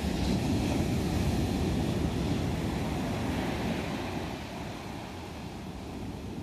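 Ocean surf breaking and washing up the beach, with wind rumbling on the microphone; it swells for the first few seconds, then eases.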